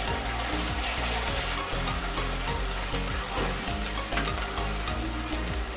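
Onion paste sizzling and frying in hot oil in a metal kadai, steady crackling throughout, with a metal spatula clicking and scraping against the pan as it is stirred.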